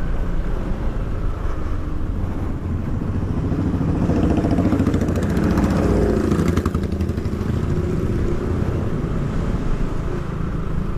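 Motorcycle engine running steadily while being ridden, a little louder around four to seven seconds in.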